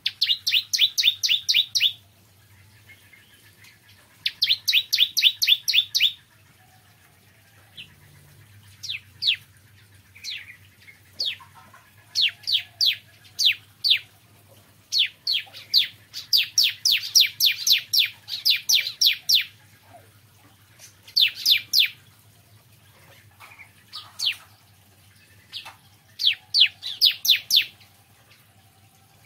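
Bar-winged prinia (ciblek kristal) singing: repeated bursts of quick, sharp, high notes, about five a second and lasting one to four seconds each, with scattered single notes between the bursts. A faint steady low hum runs underneath.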